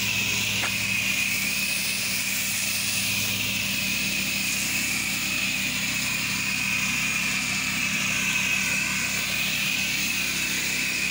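Gas pressure washer's engine running steadily while the wand sprays a wide low-pressure fan of pre-treat chemical onto concrete, a steady spray hiss over the engine.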